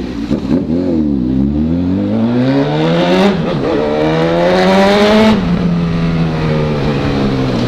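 Honda CB1000 inline-four motorcycle with a 4-into-1 exhaust accelerating hard: engine pitch climbs, drops at an upshift about three and a half seconds in, climbs again, then falls back to a steady cruise near the end.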